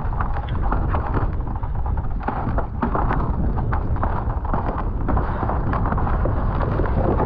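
Wind noise on the microphone, with scattered short knocks and scrapes on frozen lake ice.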